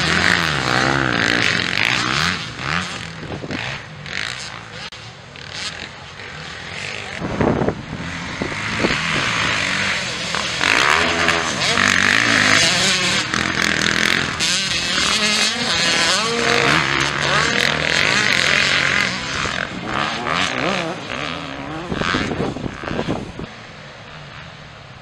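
Several motocross bikes racing on a dirt track, their engines revving up and down in pitch as riders accelerate and back off. The sound swells and dips as bikes pass, and fades near the end.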